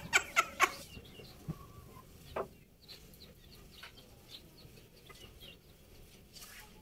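Cloth sarongs flapped and shaken with a few sharp snaps and rustles in the first second, then fabric rustling quietly as they are pulled over the head. Faint chicken clucks and chirps sound through the quiet stretch.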